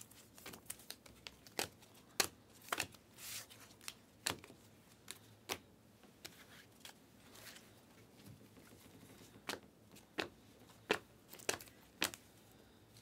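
Panini Prizm trading cards being slid off a hand-held stack one at a time: a string of faint, irregular clicks and flicks of slick card stock.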